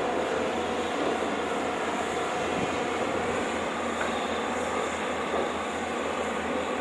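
Diesel engine of an excavator or other heavy construction machine running steadily.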